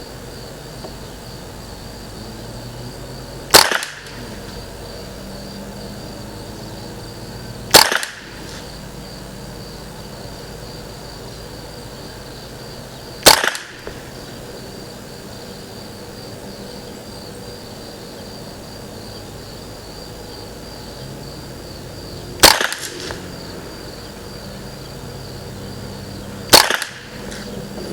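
Five single .22 LR shots from a Ruger 10/22 Target semi-automatic rifle, fired slowly a few seconds apart, each a sharp crack with a brief echo after it. Insects trill steadily behind.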